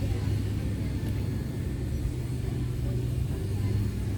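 An engine running steadily: a low rumble with a steady hum.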